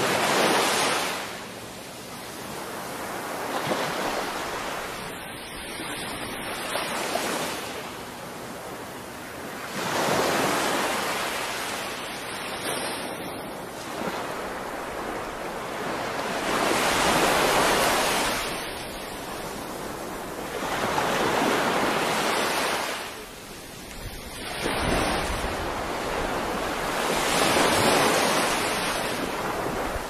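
Small waves breaking and washing up a sandy beach, the surf rising and falling about every three to four seconds.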